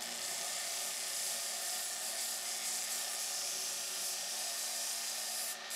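A homemade belt grinder built on a bench grinder motor runs steadily with a humming motor while a flat metal bar is ground against the abrasive belt, giving a steady hissing grind. The grind breaks off briefly about five and a half seconds in, then carries on.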